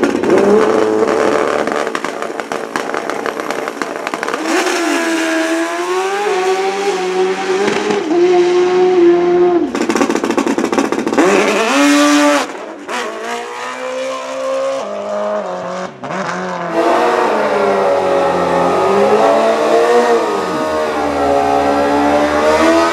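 Racing dirt bike engines running and revving, their pitch rising and falling again and again, with a sharp rev-up about twelve seconds in and a briefly quieter stretch after it.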